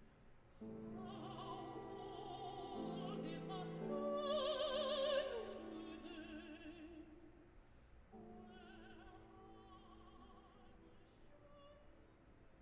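Music: operatic singing with a strong vibrato over sustained instrumental accompaniment, rising to its loudest about four to five seconds in, then a softer phrase that fades out near the end.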